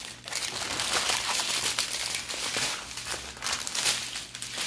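Small plastic bags of diamond painting drills crinkling and rustling as they are handled, with irregular crackles throughout.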